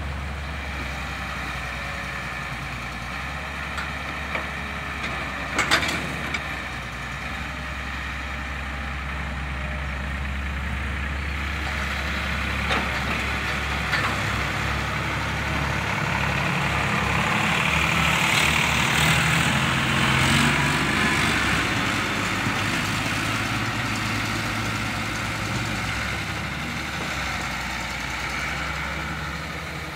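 Diesel engines of an excavator and farm tractors running steadily. The excavator's engine works harder midway through as its bucket swings and dumps mud into a steel tractor trolley. There are a few sharp knocks, the loudest about six seconds in.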